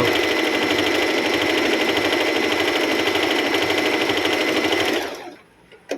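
Singer M3505 sewing machine stitching at a steady fast speed, a rapid even rattle of the needle mechanism. It winds down and stops about five seconds in, followed by a small click.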